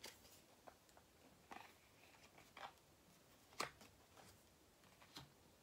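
Faint rustles and taps of tarot and oracle cards being handled and laid down: a handful of short sounds, the sharpest about three and a half seconds in.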